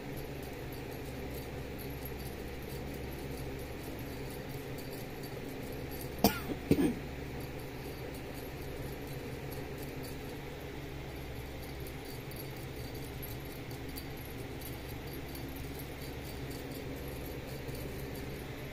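A kitten gives one brief meow about six seconds in, over a steady low hum of room noise.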